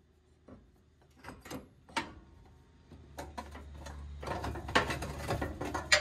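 A few light metal clicks, then clunks and scraping as a driveshaft is worked loose from the Tacoma's transfer case output flange and pulled down, with the loudest knocks near the end.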